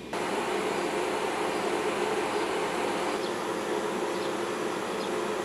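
Steady hum and whir of a standing EF65 electric locomotive's onboard auxiliary machinery, heard close up; it begins abruptly just after the start.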